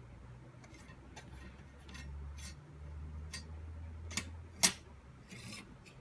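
Small hard objects being handled: a scatter of light clicks and taps over a faint low hum, with one sharp click near the end, followed by a brief scratchy rustle.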